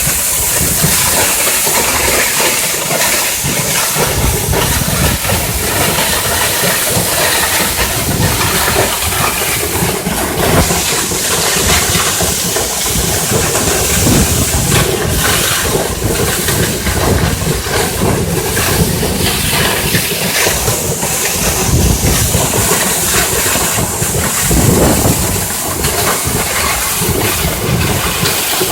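Waterfall: water pouring and crashing steadily, a loud continuous rushing hiss with a low rumble underneath.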